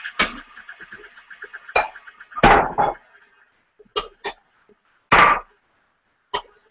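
Kitchen clatter: a series of sharp knocks and clinks of bowls, measuring cups and utensils handled on the counter while liquid ingredients go into a stand mixer bowl. A faint steady whir with a quick even pulse stops about two seconds in.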